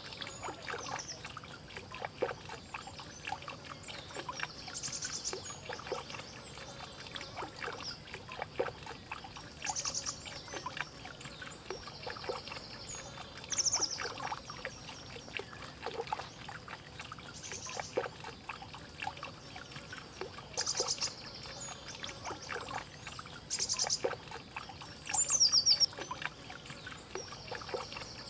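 Water trickling and splashing steadily into a small fish pond from a bamboo pipe and water wheel, set up to oxygenate the water. A bird calls in short high trills every few seconds, the loudest a falling call near the end.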